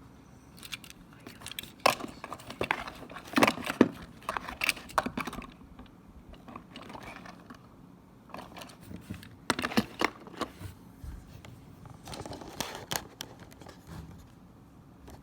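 Packaging being handled and opened by hand: irregular crinkling, tearing and sharp clicks in uneven bursts, busiest in the first few seconds and again in the second half.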